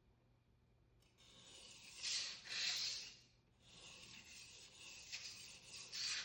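Global carving knife's steel blade rubbed back and forth on a wet 400-grit Naniwa Professional waterstone at a low angle, a gritty scraping in several strokes that begin about a second in. This is the low-angle thinning pass that refines the scratch pattern on the blade.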